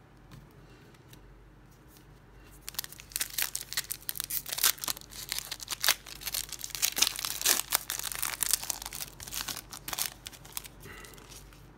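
Foil wrapper of a 2015 Panini Prizm football card pack crinkling and tearing as it is pulled open by hand. A dense run of crackles starts a couple of seconds in, lasts several seconds and dies away near the end.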